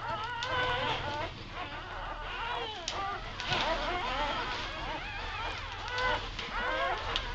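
Newborn puppies squeaking and whimpering, many high, wavering little cries overlapping one another without pause.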